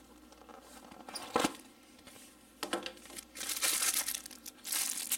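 Plastic packaging bag crinkling as a knife in its sheath is handled and pulled from a cardboard box, starting about two and a half seconds in and growing louder, after a single light knock about a second and a half in.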